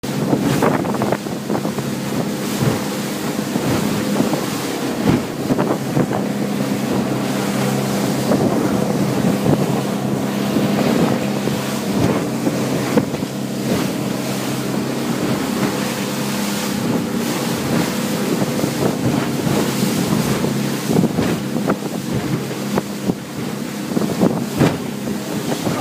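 Speedboat engine running at speed, a steady drone, with wind buffeting the microphone and water rushing past the hull, broken by frequent sudden knocks and gusts.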